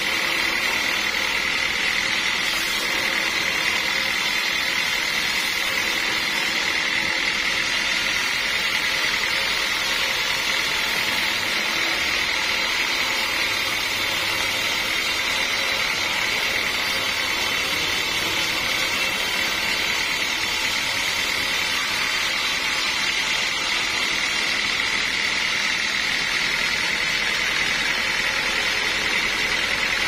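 Band sawmill blade cutting lengthwise through a teak log: a steady high whine over a rushing hiss, running evenly without a break.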